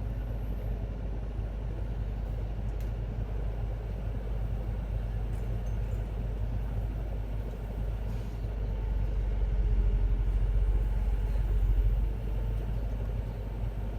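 Sany excavator's diesel engine running with a steady low rumble. It grows louder from about eight and a half seconds in for some three seconds, then drops back.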